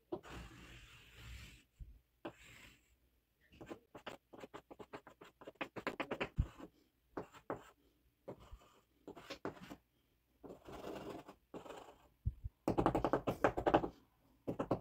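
Stick of chalk on a chalkboard-painted wall: scratchy drawing strokes mixed with quick runs of sharp taps as dots are dabbed onto the board.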